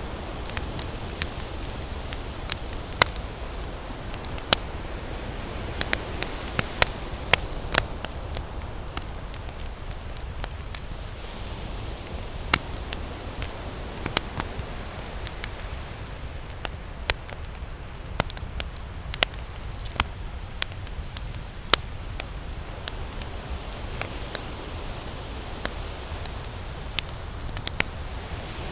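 Campfire crackling: irregular sharp pops and snaps, a few of them loud, over a steady low hiss.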